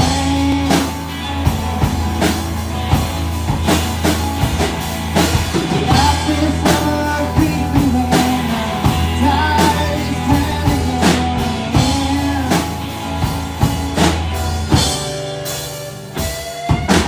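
A live rock band playing at full volume: drum kit keeping a beat over held low bass notes and pitched instrument lines. The bass drops out about two seconds before the end, leaving sharper drum hits.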